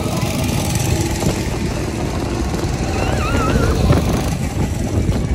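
Go-kart engines droning as the karts drive around the track, under a heavy, gusting low rumble of wind buffeting the microphone.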